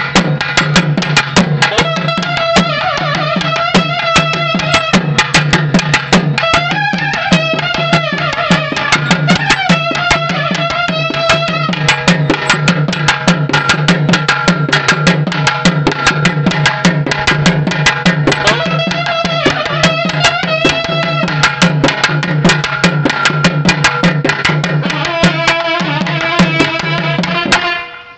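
Loud traditional temple festival music: fast, dense drumming under a wavering reed-pipe melody and a steady low drone. It cuts off suddenly just before the end.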